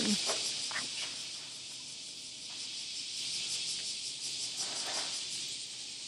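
Cicadas calling in chorus: a steady, high, hissing buzz.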